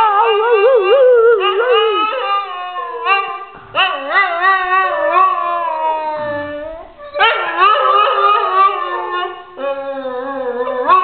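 Saluki howling: a run of about five long howls that waver and slide up and down in pitch, each held for a couple of seconds before it breaks off and the next begins.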